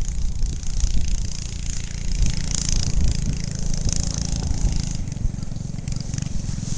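Small 6 hp Briggs & Stratton single-cylinder engine of a homemade ATV running as it is ridden at a distance, heard mostly as a low rumble.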